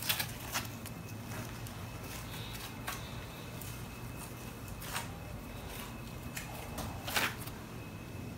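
Clear slime mixed with a little instant snow being stretched by hand, giving a handful of short, faint clicks and pops over a low steady hum.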